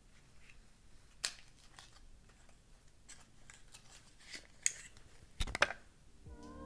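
Small cardboard makeup box being opened and handled and a concealer pen slid out of it: scattered rustles and sharp clicks, the loudest cluster near the end.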